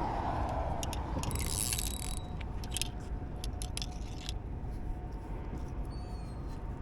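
Fishing tackle being handled while a line is rigged: scattered small clicks and a brief rustling scrape, over a steady traffic rumble. A passing vehicle fades out in the first second.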